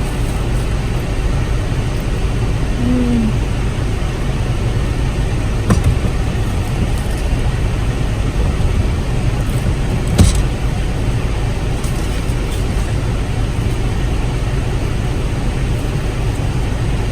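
Steady low rumble inside a car's cabin with the engine idling, broken by two short knocks about six and ten seconds in.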